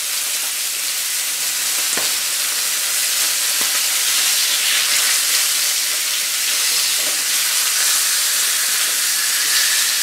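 Salmon fillets sizzling steadily in hot oil in a nonstick frying pan, with a few light knocks of a spatula against the pan.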